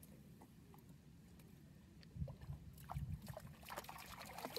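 Faint splashing and lapping of shallow lake water as a dog wades, with a few small splashes and a couple of low rumbles about two and three seconds in.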